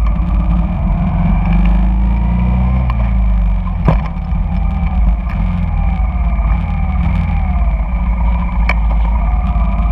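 Honda Shadow cruiser's V-twin engine running steadily as it rides through city traffic, with the engine notes of surrounding motorbikes and cars rising and falling around it. Two sharp clicks, about four seconds in and again near nine seconds.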